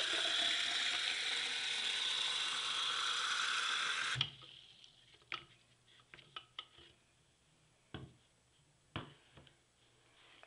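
Bathroom faucet running water into a sink basin, a steady hiss that stops abruptly about four seconds in as the tap is shut off. After that, a few light knocks and clicks of a plastic cup against the porcelain sink.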